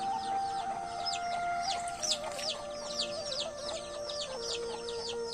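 Chicken chicks peeping over and over: quick, high chirps, each sliding downward, several a second. Background music with long held notes sits underneath.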